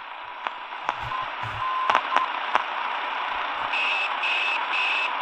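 Eton Elite Traveler portable radio hissing with long wave static from its speaker as it is tuned, with sharp button clicks in the first couple of seconds and a faint steady whistle underneath. From about three and a half seconds a beep pulses on and off about twice a second: interference the radio picks up from its own display.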